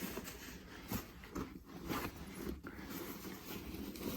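Fabric rustling as hands go through the pockets of a pair of pants, with a few short knocks from the handling.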